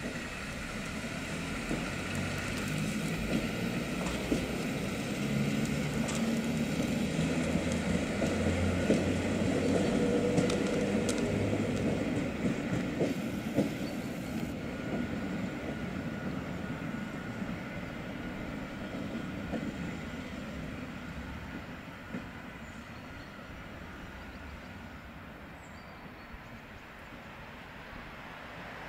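EN57 electric multiple unit departing and moving away: a low rumble and hum with scattered clicks, loudest about ten seconds in, then fading as it recedes.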